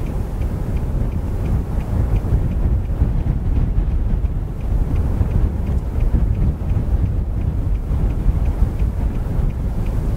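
Strong wind buffeting the microphone, a steady low rumble, with a faint regular ticking about three times a second behind it.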